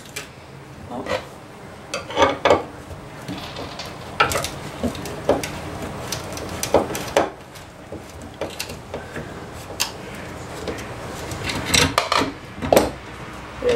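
Irregular metal clicks, clinks and wooden knocks as a tapered wooden bed leg is twisted and worked loose from its metal corner mounting plate. A few louder knocks come about two seconds in and near the end.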